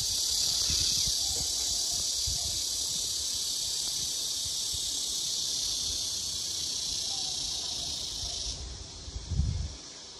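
Steady, high-pitched buzzing of insects, dropping in level about eight and a half seconds in. There is a low thump near the end.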